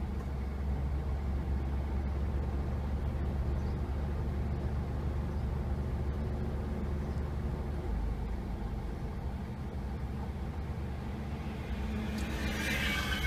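Steady low rumble of road traffic. Near the end, noise swells and a thin high squeal starts as a Hankai tram approaches the stop.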